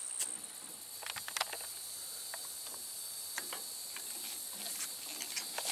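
Faint steady high-pitched insect drone with a thin whine, with scattered light clicks and handling rustles.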